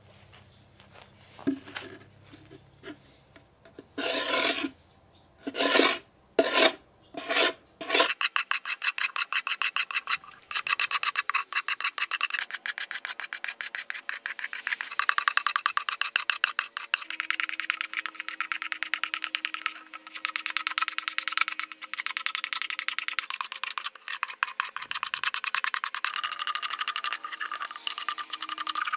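A rasp cutting the surface of a cow horn held in a vise, with rasping strokes. There are a handful of separate slow strokes first, then fast, continuous back-and-forth strokes from about a quarter of the way in, with a couple of short pauses.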